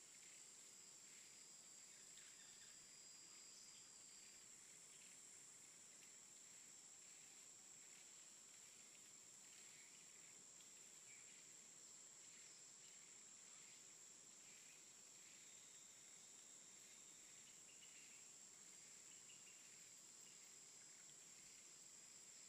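Faint outdoor ambience: a steady, high-pitched drone of insects with scattered faint chirps.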